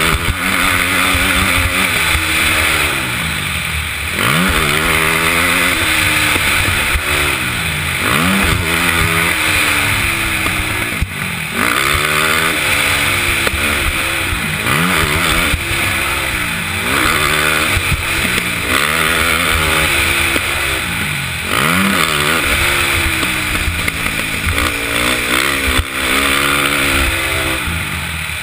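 KTM 450 SX quad's single-cylinder four-stroke engine revving hard and easing off again and again, in about a dozen rising and falling sweeps as the rider works the throttle and gears around the track. A steady rush of wind on the helmet microphone runs underneath.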